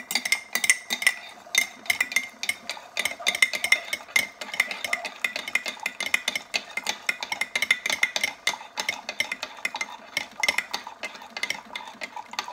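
Metal spoon stirring briskly in a ceramic coffee mug, clinking against the sides several times a second without a break. The stirring dissolves powdered cinnamon and ginger as hot coffee from a Keurig runs onto it.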